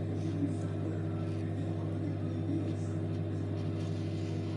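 Microwave oven running with a steady low hum.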